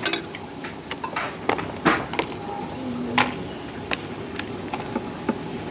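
Scattered light clinks and taps of a spoon against ceramic bowls and a plastic container as toppings are spooned into a bowl of noodles, over a steady background hiss.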